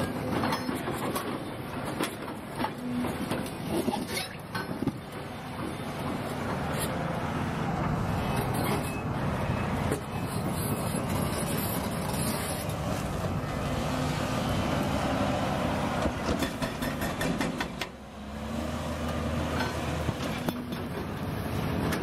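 Kawasaki wheel loader's diesel engine running as the machine drives across dirt, with sharp clanks and rattles in the first few seconds.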